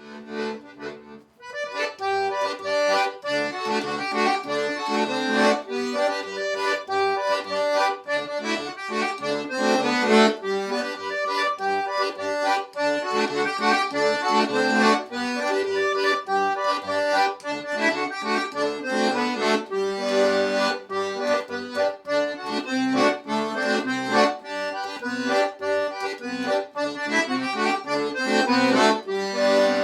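Accordion playing a lively traditional tune, its melody held over bass notes that change beneath it.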